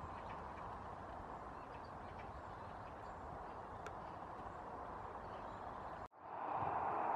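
Steady outdoor background hiss with a few faint ticks. About six seconds in it cuts out for an instant and comes back louder.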